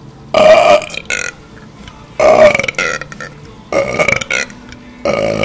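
A man burping loudly on purpose: four deep, drawn-out burps in a row, each under a second long, about a second and a half apart.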